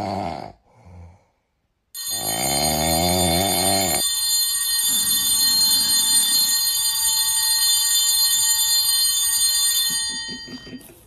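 An alarm clock bell ringing steadily for about eight seconds, starting about two seconds in and fading out near the end. A low, wavering voice-like sound comes just before it and overlaps its first two seconds.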